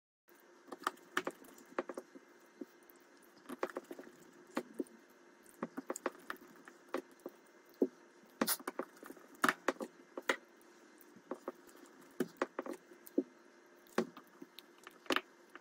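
Irregular light clicks and taps, dozens of them, over a faint steady hum: small tools and phone parts being handled during the screen and frame repair.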